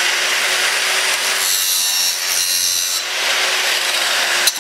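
7-inch angle grinder bevelling the edge of half-inch steel plate: the disc grinding into the steel in a steady rasping hiss, with the motor's steady hum beneath. The grinding breaks off for a moment near the end.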